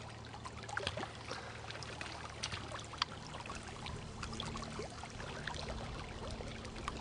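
Lake water lapping and dripping around a kayak: many small irregular splashes and drips, with a faint steady low hum underneath.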